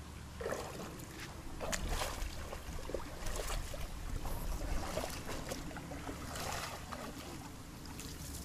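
Water splashing and sloshing in a river as a person bathes and moves about in it, in uneven strokes that are busiest in the middle.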